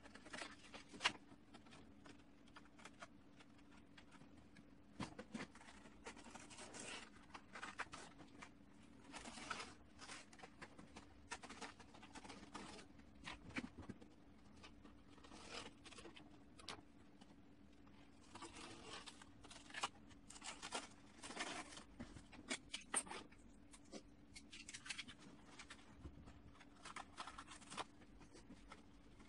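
Plastic tarp sheet rustling and crinkling in short, irregular swishes as it is handled and pressed into place, with a few sharper clicks and a faint steady low hum underneath.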